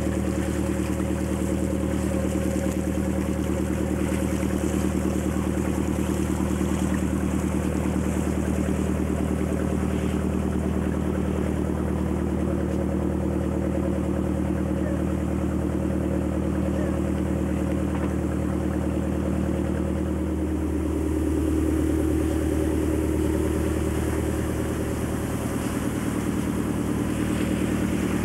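Yacht's inboard diesel engine running steadily under way, a constant droning note whose pitch shifts slightly about two-thirds of the way through.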